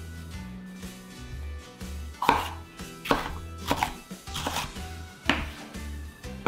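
Ceramic kitchen knife chopping through red bell pepper onto a wooden cutting board: about five sharp cuts spaced under a second apart, the first and loudest about two seconds in. Light background music with a steady low beat plays under the cuts.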